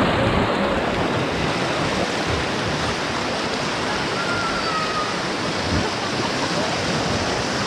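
Rushing whitewater of a river rapid, heard up close from an inner tube riding through it: a steady, loud rush of water.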